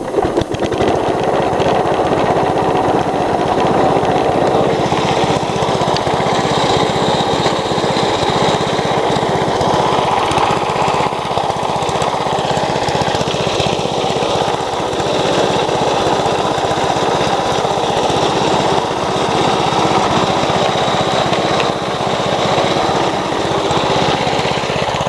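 Riding lawnmower engine starting up and running steadily at a fast, even firing rhythm.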